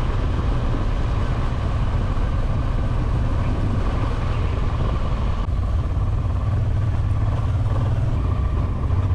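Honda Transalp 700's V-twin engine running steadily under way, with wind and road noise.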